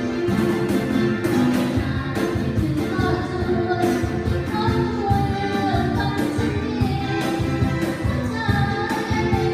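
Live band playing a song with a lead vocal over drums and keyboard chords, with a steady drumbeat throughout.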